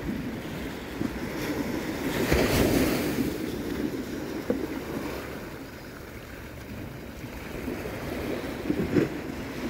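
Ocean surf washing on a beach, swelling about two seconds in and again near the end, with wind buffeting the microphone. A couple of short knocks stand out, the sharpest near the end.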